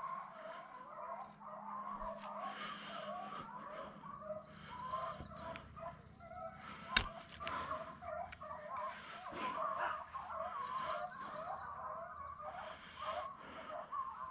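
Pack of hunting hounds (beagles and griffons) baying on the trail of a wild boar: a continuous chorus of overlapping yelps. A single sharp crack about halfway through is the loudest sound.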